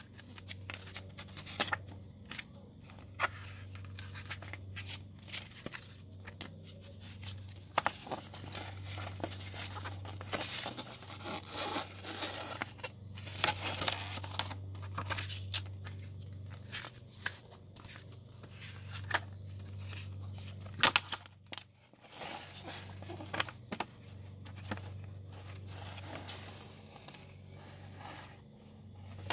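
A paper CD booklet pulled out and unfolded by hand: paper rustling with scattered taps and clicks, over a steady low hum.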